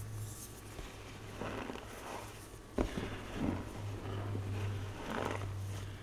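Hands pressing and crushing loose, powdery gym chalk, with soft crunching pushes every second or two and one sharp knock about three seconds in, over a steady low hum.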